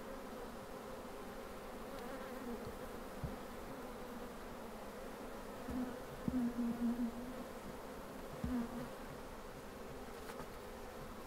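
Honeybees buzzing around an open hive: a steady hum, with a louder single-pitch buzz as bees fly close past, about six seconds in and again briefly a couple of seconds later.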